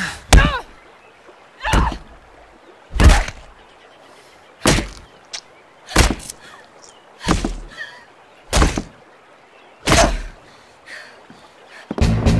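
A rock brought down again and again on a man's head: eight heavy blunt thuds, evenly spaced a little over a second apart.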